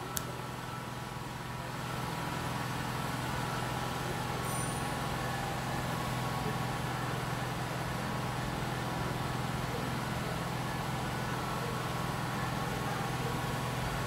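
Steady machine-like hum and hiss, even and unchanging, a little louder after about two seconds; a brief faint high squeak about four and a half seconds in.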